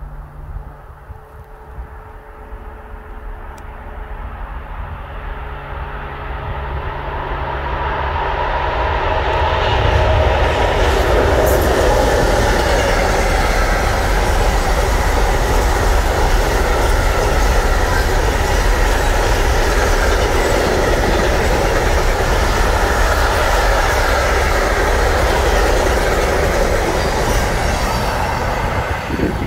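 Container freight train approaching, growing louder over the first ten seconds, then its long string of container wagons rolling steadily past with a heavy rumble and clatter of wheels on the rails.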